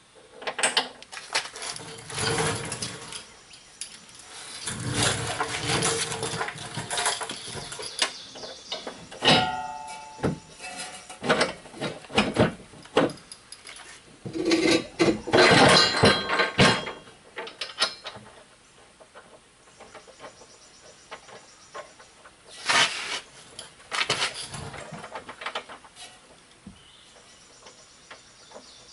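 Irregular metal clanks, knocks and scrapes as a steel receiver hitch is held up under a car and a nut is threaded onto its mounting bolt, with a short ringing clank about ten seconds in.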